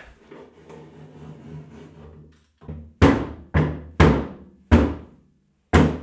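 Plasterboard being knocked and broken out, heard as five heavy thuds about half a second to a second apart, after some quieter rustling.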